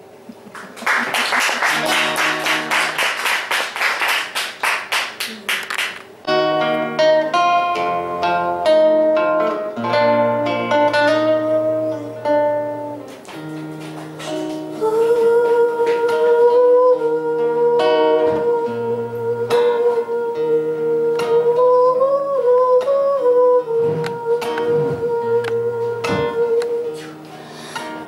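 Classical nylon-string guitar: a fast, dense strummed passage for about five seconds, then picked single notes and chords. From about halfway through, a woman's voice joins with a long, slowly wavering melody line over the guitar, which stops shortly before the end.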